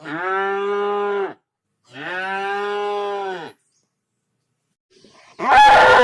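Cow mooing: two long, steady moos one after the other, then a third, louder moo beginning with a rough, breathy start near the end.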